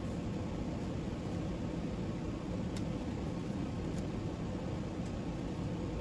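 Steady low rumbling background noise with a faint hiss, even in level throughout, and three faint short ticks around the middle.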